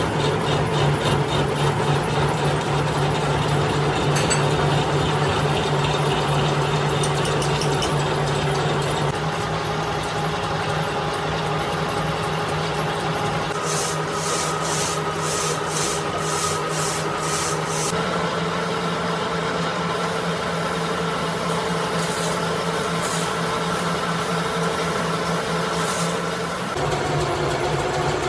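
An old machine tool runs steadily with a low hum while a cutting tool scrapes metal on a compressor crankshaft being machined. About halfway through, a light ticking comes about twice a second for a few seconds, and the machine's tone shifts twice.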